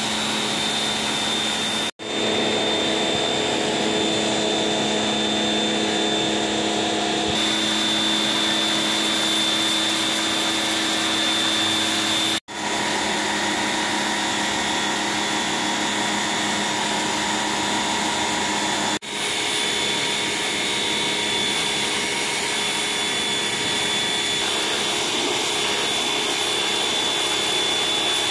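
Compact electric pressure washer running steadily, its motor humming and whining under the hiss of the water jet striking a pebble-stone floor. The sound cuts out for an instant three times.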